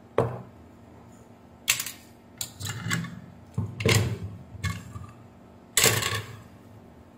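An irregular run of about eight sharp clacks and knocks, like things handled on a hard workbench. The loudest come near the start and near the end.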